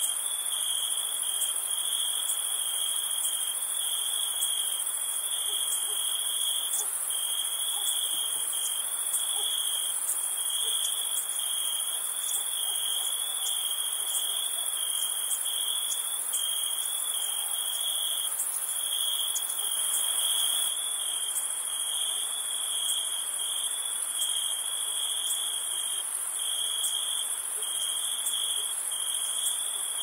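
Night insects such as crickets trilling in a steady, high-pitched chorus. One shrill trill falters briefly every second or two over a higher, hissing insect chorus.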